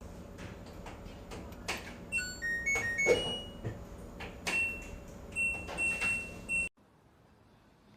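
Washing machine control panel being operated: button clicks, a quick little melody of electronic beeps at changing pitches, then a few longer single-pitch beeps. The sound cuts off abruptly near the end.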